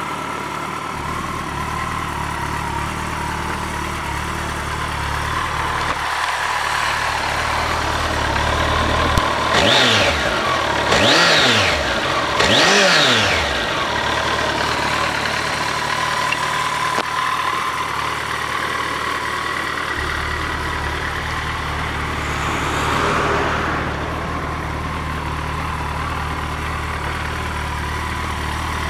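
2016 Kawasaki Ninja ZX-14R's inline-four engine idling through its exhaust, blipped three times in quick succession about ten to thirteen seconds in, the pitch rising and falling with each blip. A lighter rev follows some ten seconds later before it settles back to idle.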